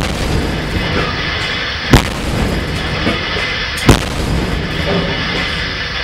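A 130 mm A-192M naval gun on a Project 22350 frigate firing three rounds about two seconds apart, each a single sharp boom.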